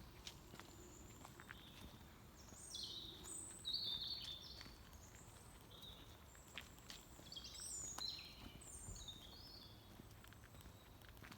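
A songbird singing short, high phrases in two bursts, over a faint outdoor background with a few light footsteps.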